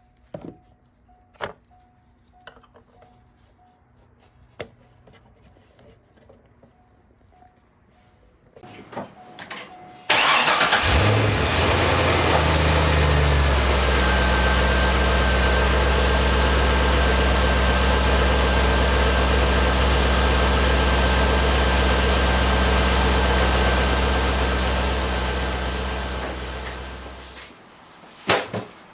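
C5 Corvette's 5.7-litre V8 is cranked by the starter and catches about ten seconds in, flaring briefly before settling to a steady idle. This is its first start after the oil cooler install, with oil pressure already built by cranking. A few light clicks come before the start, and the engine sound dies away near the end.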